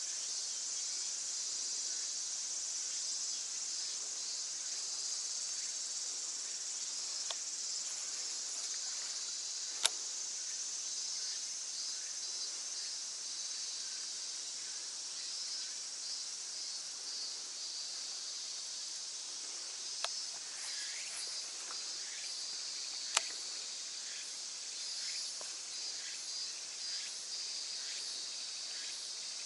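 Steady high-pitched chorus of insects in summer vegetation. Three sharp clicks stand out above it, one about a third of the way in and two more a little past the middle.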